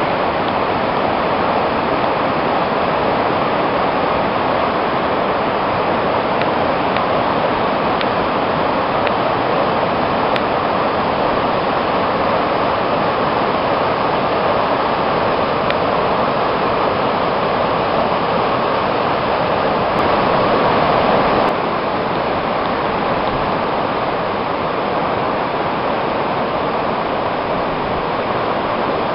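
Flooded river in spate, fast brown floodwater rushing and churning in a steady, loud wash of water noise, swelling briefly about twenty seconds in.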